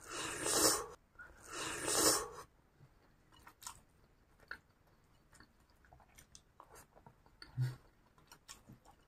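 Close-up eating sounds: a bite of chewy fried cilor coated in egg is taken from a skewer and chewed. There are two louder, noisy mouth sounds in the first two seconds, then soft, scattered chewing clicks and a brief low hum near the end.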